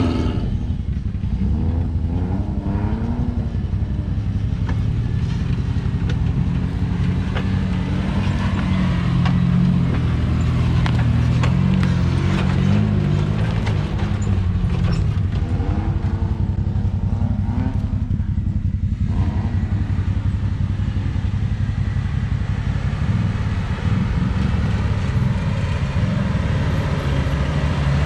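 Off-road 4x4 vehicle's engine running under changing load, its pitch rising and falling as it drives, with scattered knocks and rattles, most of them around the middle.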